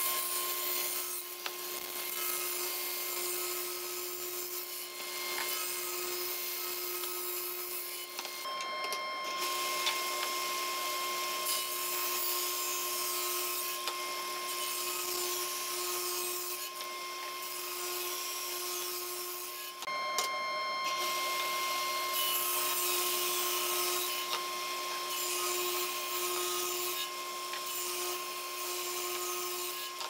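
SawStop table saw running, its blade and motor giving a steady whine, while 2x6 lumber is ripped lengthwise into thin strips; the cutting noise swells and eases as each board is pushed through, dropping briefly twice between passes.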